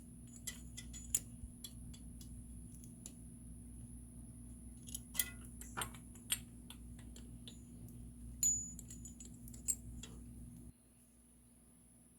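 Spark plug tool clicking and tapping at irregular intervals as a spark plug is tightened into the engine, with a brief metallic ring partway through.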